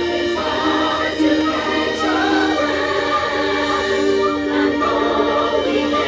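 Music: a choir singing, the voices holding long notes that step from one pitch to the next.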